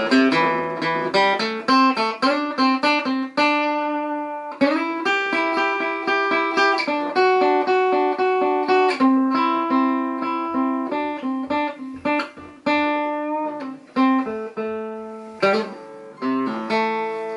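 A 1959 Höfner President archtop guitar played solo: a continuous passage of picked single notes and chords, each ringing and fading, with a bright tone.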